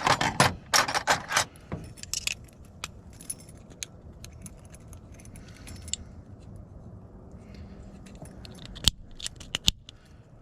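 Small metal lock parts and keys jangling and clicking as a lever handle lockset is handled and reassembled, a busy flurry of clinks in the first couple of seconds, then scattered ticks and two sharp clicks near the end.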